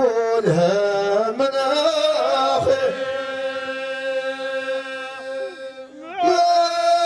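A man chanting an ahwash verse into a microphone. The melody wavers at first, then settles on one long held note from about three seconds in. The note breaks off just before six seconds, and a new held note starts soon after.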